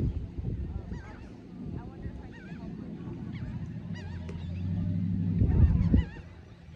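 Birds calling repeatedly in short wavering cries, over a low rumble of wind on the microphone that gusts loudly at the start and again about five and a half seconds in.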